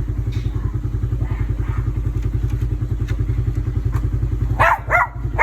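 A small engine idles steadily with a fast, even putter throughout. Near the end a dog gives a few sharp barks.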